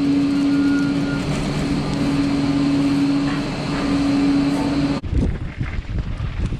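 A steady low hum that cuts off suddenly about five seconds in. It gives way to wind buffeting the microphone and the uneven rumble and rattle of a mountain bike riding down a dirt trail.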